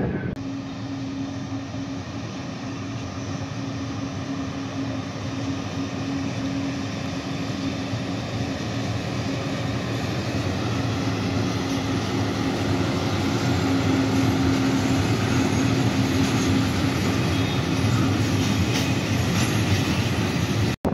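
ÖBB Taurus electric locomotive hauling a freight train of tank containers past, with a steady hum over the rumble of wheels on rail that grows louder towards the middle.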